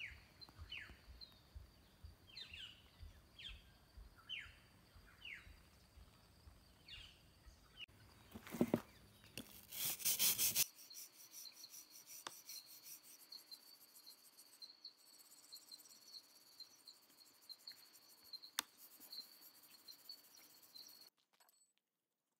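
Faint outdoor ambience: a steady high insect trill, short falling bird chirps repeated over the first half, and a few louder rubbing and scraping noises from handling a rusty steel bench vice.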